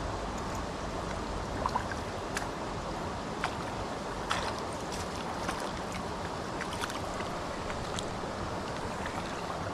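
Shallow river running over a stony bed: a steady rush of water, with a few short sharp ticks scattered through it.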